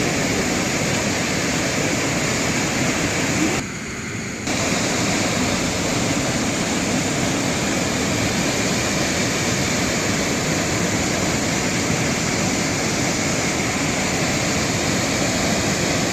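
Steady rushing of a waterfall, dense and even, briefly quieter for under a second about four seconds in.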